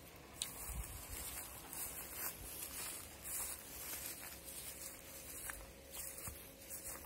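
Sheep grazing on dry grass: faint scattered rustling and crunching with a few soft clicks. A high hiss swells and fades several times.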